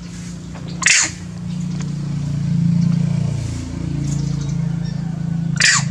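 A motor engine running steadily, growing louder towards the middle and easing off again, with two short, sharp, high-pitched sounds, one about a second in and one near the end.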